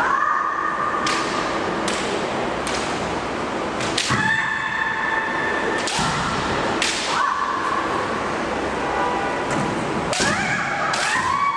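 Women kendo fighters' high-pitched kiai shouts, several of them held for a second or two and rising in pitch as they begin, with sharp clacks of bamboo shinai in between.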